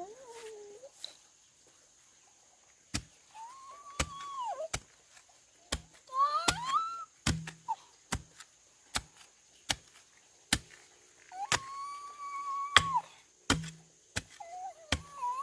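Repeated sharp chopping strikes, a hand tool hitting wood or ground about once a second, with a few drawn-out calls in between.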